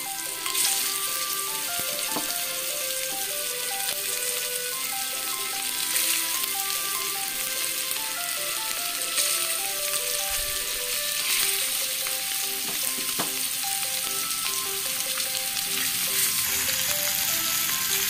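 Marinated stingray pieces shallow-frying in hot oil on a dosa tawa (flat griddle): a steady sizzle that surges louder several times as more pieces are laid into the oil.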